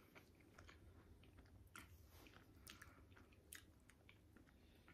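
Faint chewing: soft, irregular mouth clicks and smacks of people eating a caramel-filled chocolate.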